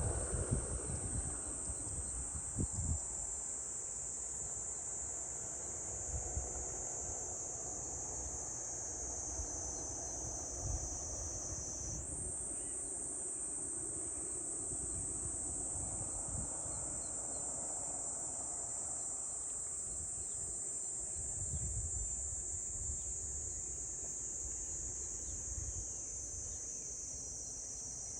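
Steady high-pitched insect chorus whose pitch drifts slowly down and jumps back up about halfway through, with gusts of wind rumble on the microphone.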